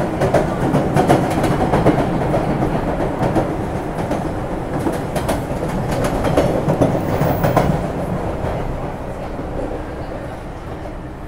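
MBTA subway train heard from inside the car while moving at speed: a steady rumble with wheels clacking over the rail joints. It grows quieter over the last few seconds.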